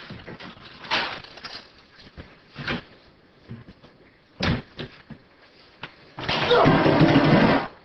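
A few sharp knocks, then a loud crash lasting about a second and a half near the end, like something breaking.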